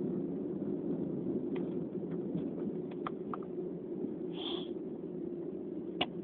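Steady low background hum between sneezes, with a few faint clicks, a brief high squeak about four and a half seconds in, and a sharper click near the end.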